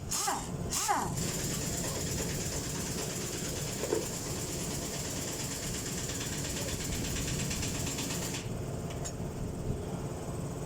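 A machine running steadily with a low hum, plus a high hiss that cuts off sharply about eight seconds in.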